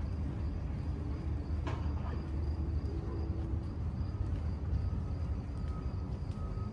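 Night-time waterfront city ambience: a steady low rumble of distant traffic and city hum, with a faint, thin, steady high tone and a single click a little under two seconds in.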